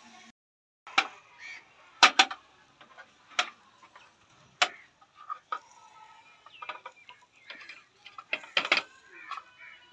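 Metal kebab skewers clinking and scraping against the grill's metal frame as the chicken tikka skewers are lifted and turned over the charcoal: a handful of sharp clinks spread through, the loudest a pair about two seconds in and another pair near the end.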